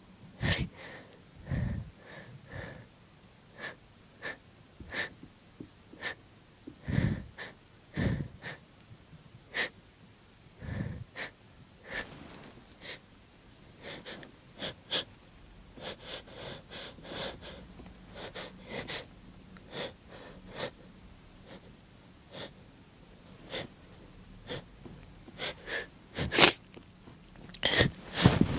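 A person sniffling and taking short, hitching breaths again and again as a sneeze builds but won't come out, with a sharp, louder burst about 26 seconds in and another cluster of louder breaths near the end.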